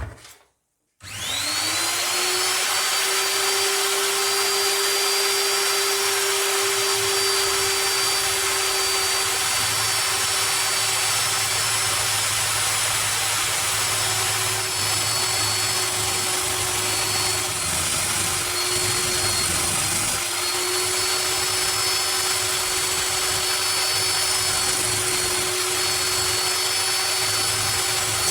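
Electric power tool motor spinning up about a second in, then running steadily with a constant whine over a hiss; its pitch wavers slightly a few times later on.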